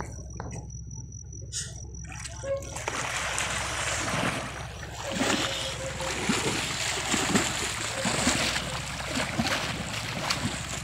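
Sea water splashing and sloshing as someone wades or moves through it, starting about three seconds in and going on in uneven surges.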